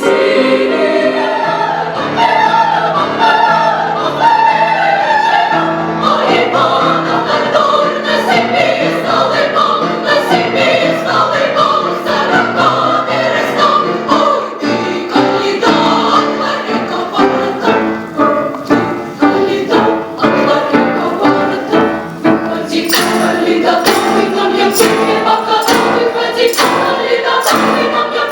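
Women's choir singing. Sharp, evenly repeated strikes join the singing in the last few seconds.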